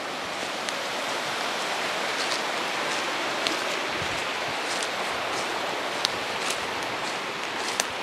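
Steady rush of a river flowing below the path, with occasional sharp crackles and snaps of footsteps on dry leaves and twigs.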